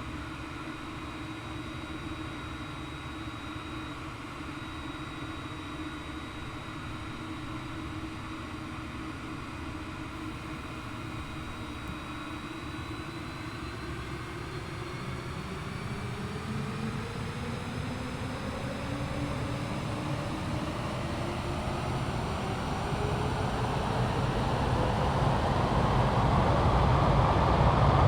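Boeing 777X's GE9X turbofan engines spooling up for takeoff: a steady hum for the first half, then a whine that rises steadily in pitch while growing louder.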